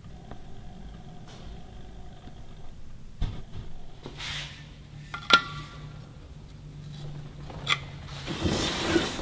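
Metal engine-case parts and bolts being handled on a workbench: a few sharp metal clinks, one ringing briefly about five seconds in, and a scraping shuffle near the end, over a low steady hum.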